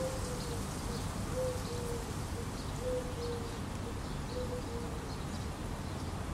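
A dove cooing: low coos in about four short phrases of one or two notes each, with faint chirps of small birds behind.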